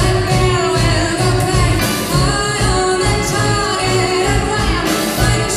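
A woman singing live into a microphone with a band behind her, the drum kit keeping a steady beat with cymbals.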